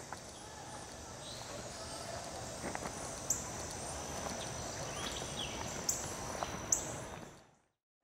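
Intro sound effects: a steady hiss with a faint high whine, a few sharp clicks or swishes spaced through it, fading out near the end.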